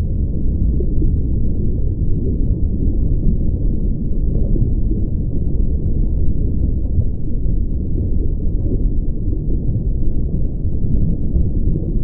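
Steady low rumbling noise with no distinct events.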